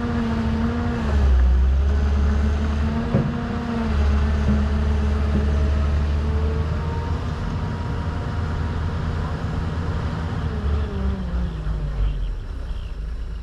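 Excavator running under load: a steady pitched motor whine over a deep hum. The pitch dips about a second in and slides down near the end.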